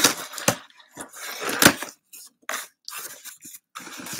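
Cardboard shipping box being opened by hand, with packing tape slit and the flaps scraped and pulled open in short, irregular bursts. Metal bangles clink now and then.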